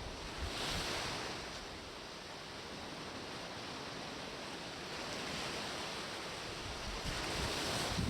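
Ocean surf breaking and washing up the beach, swelling shortly after the start and again near the end.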